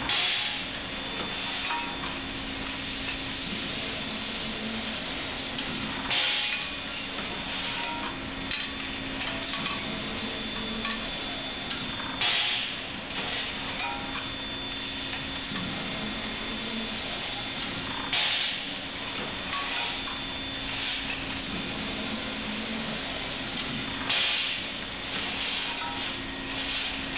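Flat cross-wedge rolling machine working through its cycle on heated steel billets: a steady hum of the running plant, with a louder hissing, clattering stroke about every six seconds, five in all.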